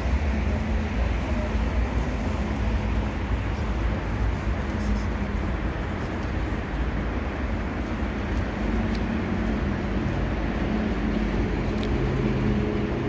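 Steady city road traffic from a busy multi-lane road and overpass. A low, steady hum joins about two-thirds of the way in.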